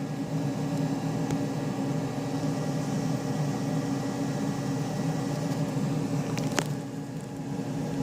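Small hobby CNC machine running steadily while working a circuit board, with a steady motor hum. A single short sharp tick comes a little before the end.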